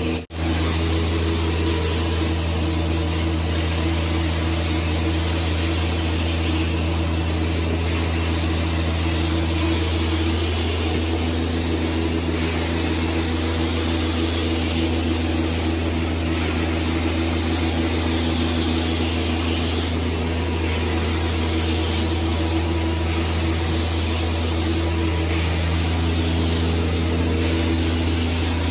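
Carpet-cleaning hot-water extraction machine running steadily, its wand spraying and sucking water back out of the carpet: a constant low hum with a steady whine and hiss over it. The sound drops out for a split second at the very start.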